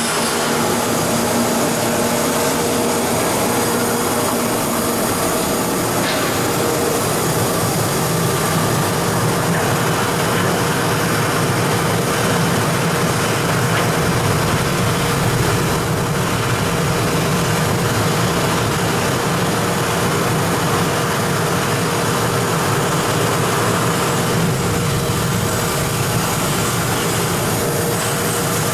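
YDN-85 plastic waste film recycling machine running steadily: a loud, even machine noise with a thin steady hum through it.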